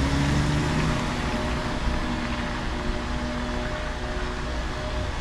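City street traffic noise: a motor vehicle's engine running, its pitch rising briefly in the first second, over a steady low rumble.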